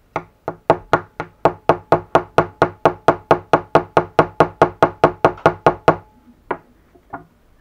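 Metal file scraping back and forth across a small moulded plastic kit part, about four to five quick strokes a second, then two single strokes near the end: filing off the moulding flashing so the gearbox parts fit together.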